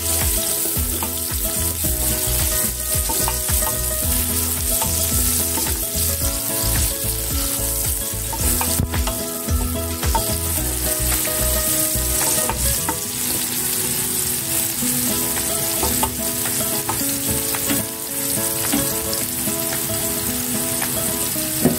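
Sliced red onions sizzling as they fry in hot oil in a pot, stirred with a spoon; a steady hiss throughout.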